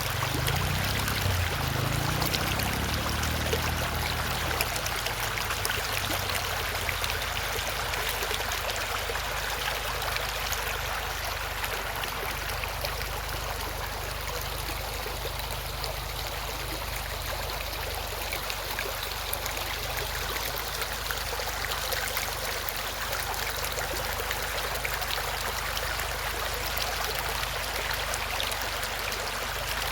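Running water flowing steadily, like a stream, with a low rumble during the first few seconds.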